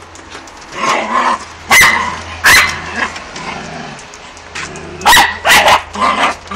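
Jagdterrier barking sharply at a rabbit it is trying to reach: about four loud barks in two pairs, with lower growling sounds in between.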